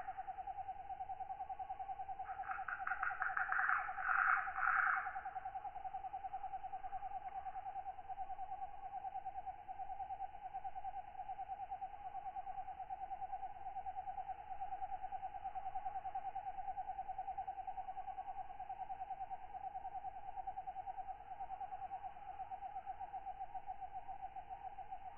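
Tropical night insect chorus of katydids: a steady, finely pulsed trill runs throughout. A louder katydid call of rapid pulses comes in about two seconds in and stops about five seconds in.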